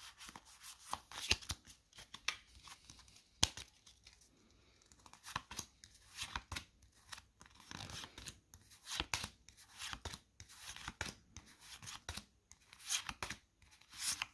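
Pokémon trading cards and a foil booster-pack wrapper being handled: a scattered run of short, sharp papery crinkles and clicks, at a low level.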